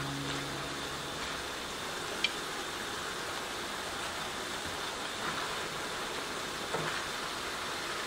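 Noodles, cabbage and pork sizzling in a frying pan as they stir-fry, a steady hiss. A sharp click comes about two seconds in, and later there are a couple of light knocks of tongs on the pan.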